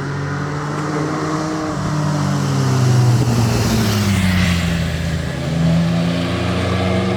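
Motor vehicle engine running steadily, its low hum drifting slightly in pitch, with a vehicle passing by on the road, loudest about three to four seconds in.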